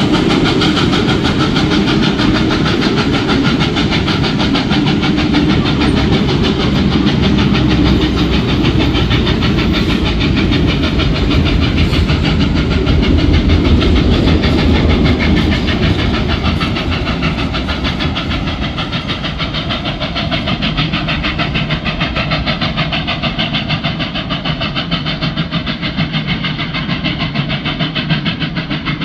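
NSW 59 class 2-8-2 steam locomotive 5917 working a train, its running heard as a loud, rapid, regular beat; it gets somewhat quieter from about halfway through.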